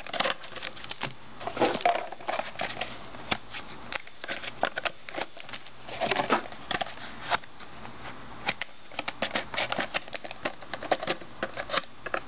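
Plastic-wrapped football trading card packs crinkling and rustling as they are handled and pulled from their box, with many irregular crackles and taps.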